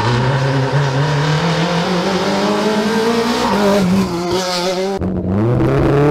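Renault Clio III rally cars' four-cylinder engines at high revs through a hairpin, the pitch dropping and climbing again as the car brakes and changes gear, with a short tyre squeal about four seconds in. About five seconds in the sound cuts to a second Clio accelerating hard, its revs rising.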